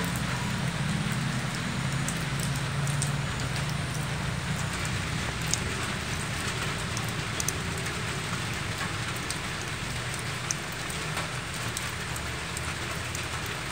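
Steady light rain falling, a drizzle, with scattered single drops ticking sharply close by.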